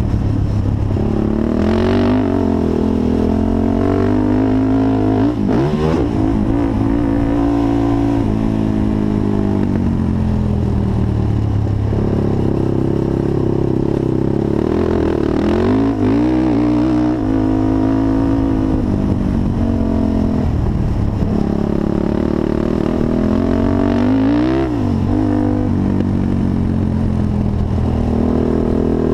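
Honda TRX450 quad's single-cylinder four-stroke engine under riding, revving up and falling back over and over as the throttle is worked round the track, with a few quick drops in pitch where it is shut off.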